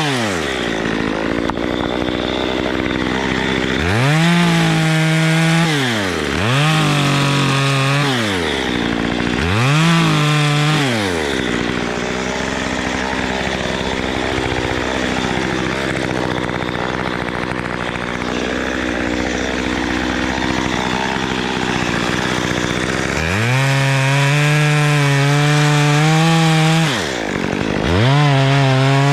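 Two-stroke Stihl chainsaw revved in three short bursts, each rising quickly to full speed and dropping back. It then runs for about ten seconds without a steady pitch, and is held at full speed again near the end with a brief dip.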